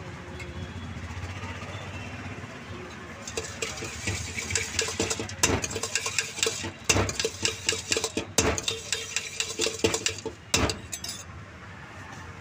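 Steel spoon rapidly clinking and scraping against a stainless steel bowl as puffed-rice bhel is stirred and tossed. The quick clinks start about three seconds in and stop shortly before the end.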